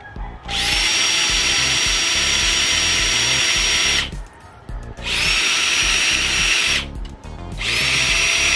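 Electric drill with a twist bit boring a guide hole through a motorcycle brake lever: three runs of a steady high whine, the first about three and a half seconds long and the next two shorter, each rising briefly as the drill spins up.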